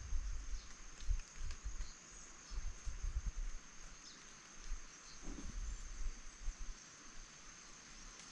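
Insects trilling in one steady high-pitched tone, a second trill joining near the end, with a few faint chirps. Gusts of wind rumble on the microphone, mostly in the first half.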